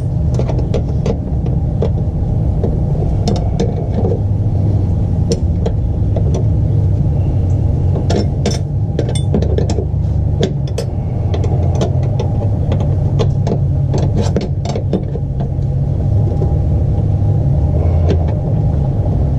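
Open-end wrenches clicking and clinking against a metal clutch hard-line fitting as it is snugged up, in scattered short clicks over a steady low rumble.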